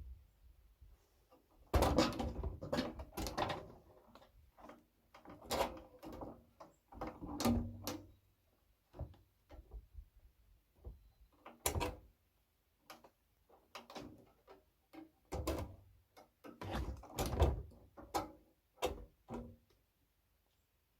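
A series of irregular knocks, clunks and rattles, like parts and tools being handled and set down, in clusters with short pauses between, stopping a little before the end.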